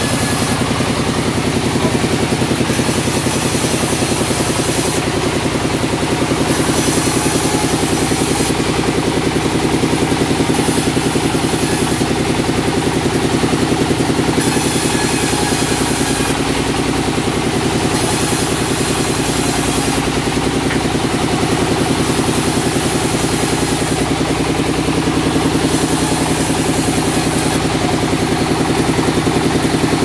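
Sawmill machinery running steadily, a continuous engine-like drone with a high hiss that comes and goes every second or two.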